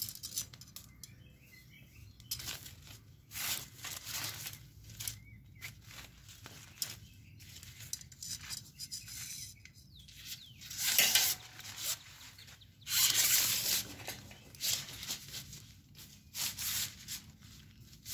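Fabric of a pop-up soccer net rustling and flapping as a pole is slid through its sleeve and the net is handled, in irregular bursts that are loudest about eleven and thirteen seconds in.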